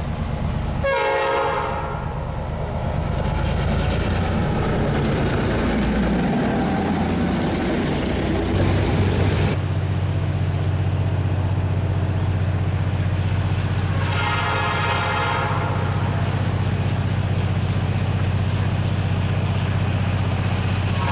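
EMD diesel switcher locomotive working with a freight train, its engine giving a steady low drone, with two blasts of the air horn: a short one about a second in and a longer one of about two seconds a little after the middle.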